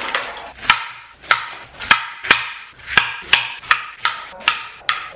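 A kitchen knife chopping a peeled pineapple on a cutting board: about a dozen sharp chops at roughly two a second, each knock with a short ring.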